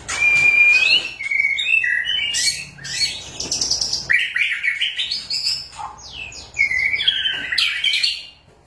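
White-rumped shama singing a loud, unbroken run of varied whistles, slurred glides and fast trills, pausing briefly near the end.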